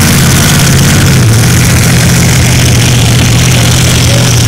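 Racing powerboat's engine running at speed, a loud steady drone that shifts slightly in pitch about a second in.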